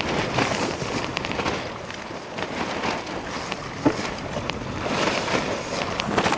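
Wind buffeting the microphone at sea, with a steady rush of wind and waves broken by frequent irregular crackles.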